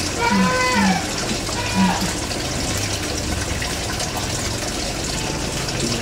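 Steady rushing background noise, with a few short low hooting notes and two brief calls that fall in pitch in the first two seconds.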